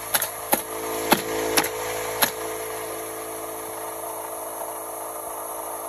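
Nails being driven during roofing work: six sharp strikes in the first two seconds or so, roughly half a second apart, then stopping. A steady hum with a few held tones runs underneath.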